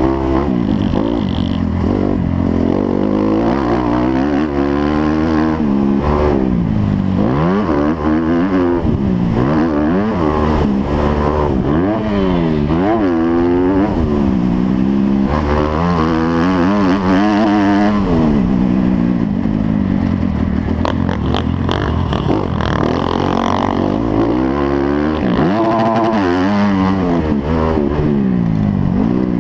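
Motocross bike engine revving hard, its pitch climbing and dropping again and again as the throttle is opened and closed and the gears change. There are a few brief clattering knocks about two thirds of the way through.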